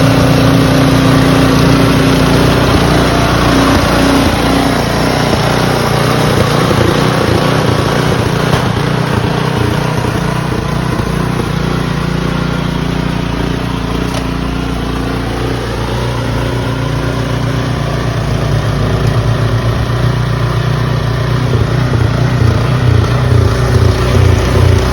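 An engine running steadily and loudly, its pitch shifting slowly, with an uneven throbbing near the end.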